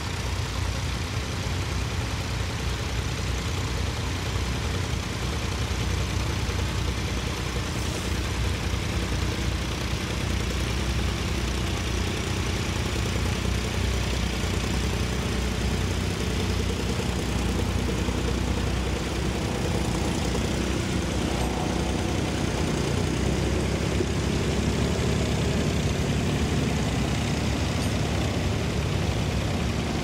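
Ford 3000 tractor's three-cylinder engine running steadily under load as it pulls a plough through stubble.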